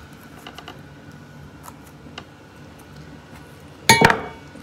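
Faint light clicks of kitchen work, then about four seconds in a single loud metallic clank with a short ring, as of a metal utensil knocking against the cooking pot where a cabbage head is boiling.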